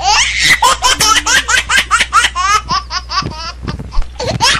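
Peals of high-pitched laughter, many quick bursts in a row, over a steady low hum.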